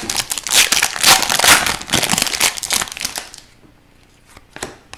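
Crinkling and tearing of a hockey card pack's wrapper as it is opened, dense for about three and a half seconds. After that come a few light clicks as the cards are handled.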